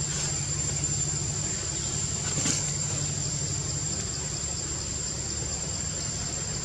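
Steady low mechanical hum, like an idling engine, with a constant high-pitched whine above it; a short click about two and a half seconds in.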